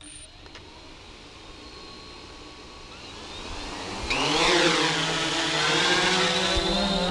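AEE AP9 quadcopter's motors and propellers spinning up for takeoff. A faint whir grows from about three seconds in, then about four seconds in it jumps to a loud whine of several tones that dips and then climbs in pitch as the drone lifts off.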